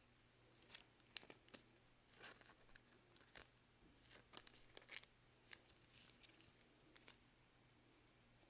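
Near silence with faint, scattered rustles and light clicks from gloved hands handling a trading card, over a faint steady hum.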